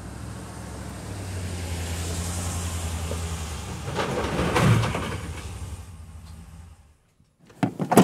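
Ram pickup truck driving slowly past, its engine running with a steady low hum. About four seconds in comes a louder clatter as loose cargo shifts and knocks in the truck bed. Near the end there are a few sharp clicks as the tailgate handle and latch are worked.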